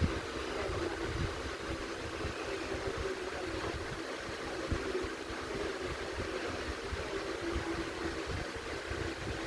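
Liliana turbo electric fan running steadily: an even rush of air with a constant motor hum, and irregular low rumbling like air buffeting the microphone.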